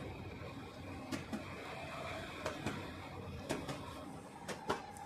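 Hands handling and shifting bandhani saree cloth, with a few short, sharp clicks and taps spread through it over a faint steady hum.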